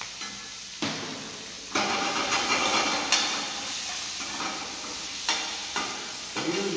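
Minced lamb sizzling as it fries in a stainless steel pan, stirred with a metal ladle that clicks and scrapes against the pan. The sizzle grows louder about two seconds in.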